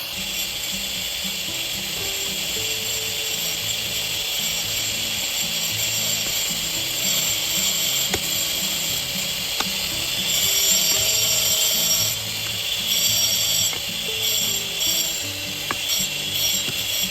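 Background music with a stepping low melody, over a continuous high rasping, ratchet-like noise that swells about two-thirds of the way through.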